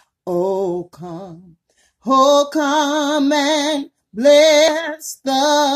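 A woman singing unaccompanied, holding long notes with a wide, regular vibrato, in several short phrases broken by brief pauses for breath.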